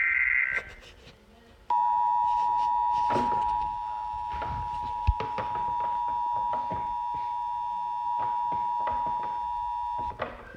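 Emergency Alert System alert: the last SAME data-header burst, a harsh warbling screech, ends about half a second in. After about a second of quiet the steady two-tone EAS attention signal starts and holds for about eight and a half seconds before cutting off sharply. Scattered faint clicks and knocks sound behind it.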